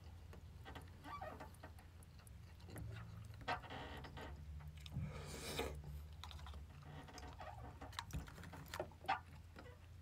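Faint, scattered clicks and scrapes of a metal spoon against a takeaway rice bowl while eating, over a low steady hum.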